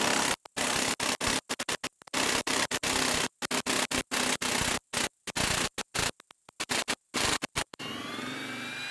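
Milwaukee M18 1-inch impact wrench hammering under heavy load as it drives a long lag screw into a wood stump. The loud, harsh hammering breaks up in irregular bursts. In the last second it settles into a steadier run with a rising whine.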